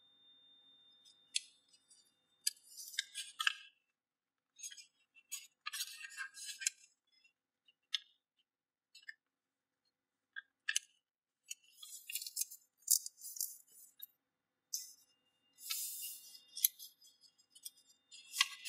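A sheet of A4 paper rustling and crinkling in irregular bursts as hands fold and crease it, with a quiet stretch in the middle.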